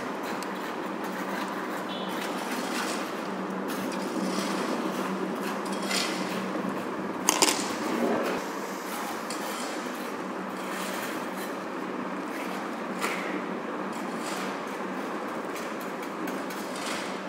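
Small clicks and taps of a microscope objective's metal lens parts being handled and fitted back together, over a steady background hiss, with a louder clatter about seven seconds in.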